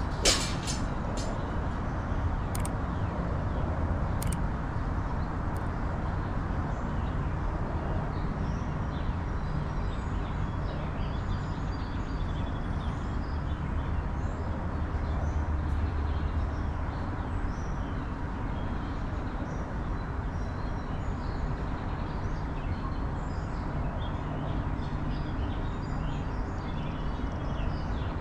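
Steady low rumble of outdoor city ambience, with faint bird chirps scattered through and a sharp click just at the start.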